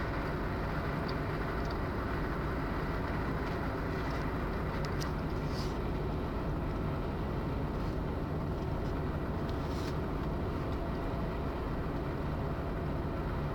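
Steady low rumble of a moving vehicle, with a few faint brief swishes partway through.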